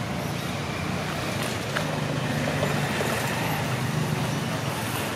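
Steady outdoor background noise with a low droning hum, like nearby road traffic, swelling slightly in the middle.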